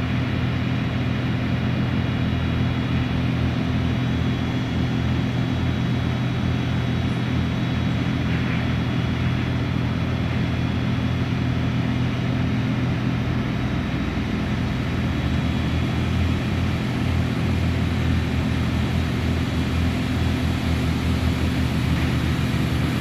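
An engine running steadily with an even, low drone that stays at one level and one pitch throughout.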